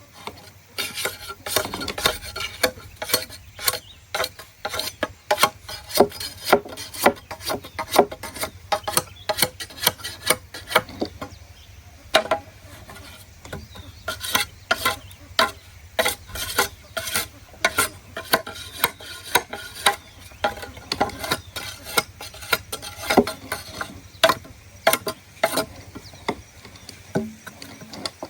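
Irregular scraping and clicking strokes, several a second, with no pause, like something being rasped or scraped by hand.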